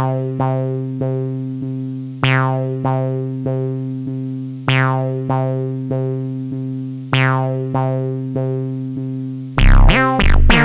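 Background music: synthesizer keyboard notes struck in a repeating pattern over a steady low tone, turning into a louder electronic beat with drums about a second before the end.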